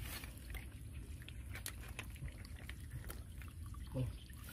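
Hands splashing and scooping in a shallow muddy puddle, water dripping and trickling off them, with scattered small clicks of apple snail shells knocking together as they are gathered up.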